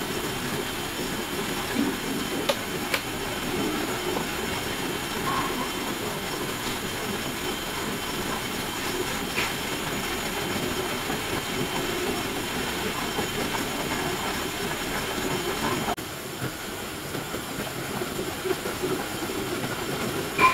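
Portable butane gas stove burner running steadily under an aluminium pot of coconut juice as it heats, with a few faint ticks from the pot. The sound drops a little about sixteen seconds in.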